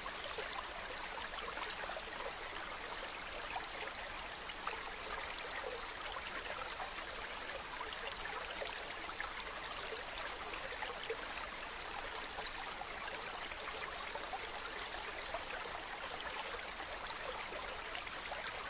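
Mountain stream running steadily over rocks, an even rushing flow with small trickles and splashes.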